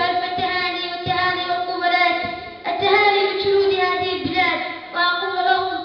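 A girl's voice singing in long held phrases of about two seconds each.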